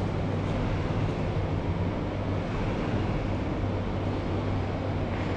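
Pickup truck engine running at low speed with a steady low hum as it slowly reverses a trailer.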